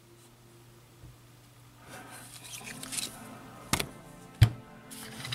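Handling noise from two steel .44 Magnum revolvers being picked up and moved: soft rubbing and shuffling, then two sharp knocks under a second apart, the second the louder.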